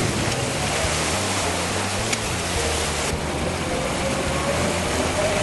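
Motorboat engine running, with rushing water and wind noise over it.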